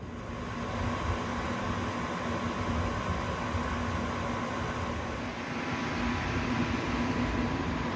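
52-inch Harbor Breeze Geneva ceiling fan with a 188x15mm spinner motor running, a steady rush of air with a low motor hum and a fainter higher tone. It grows louder over the first second, then holds steady.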